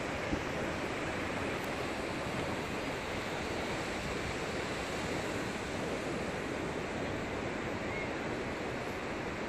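Sea surf washing onto a sandy beach: a steady, unbroken rush of breaking waves.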